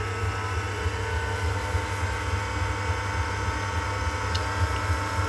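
Electric potter's wheel running at high speed, a steady low hum with a faint whine above it, while a lump of wet clay is being centred on the wheel head.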